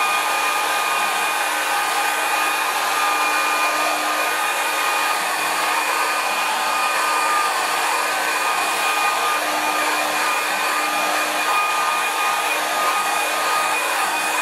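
Handheld Revlon hair dryer blowing steadily: a loud rush of air with a steady motor whine.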